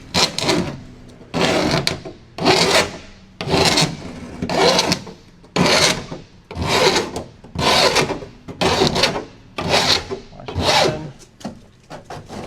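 Hand file drawn across the cut edge of a sheet-metal van door panel to take off the burrs: about eleven scraping strokes, roughly one a second.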